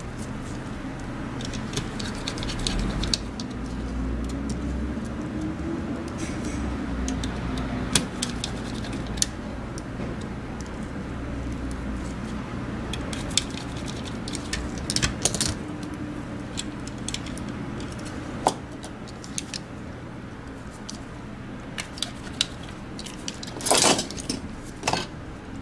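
Scattered light clicks and taps of small plastic and metal parts of a disassembled Logitech G Pro Wireless mouse being handled with tweezers, over a steady low hum; a cluster of louder clicks comes near the end.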